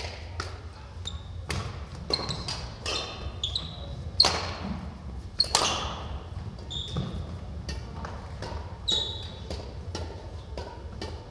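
Badminton rally: rackets striking the shuttlecock in a run of sharp cracks that echo in the hall, the two loudest about four and five and a half seconds in, with short squeaks of court shoes on the wooden floor between them. A steady low hum lies underneath.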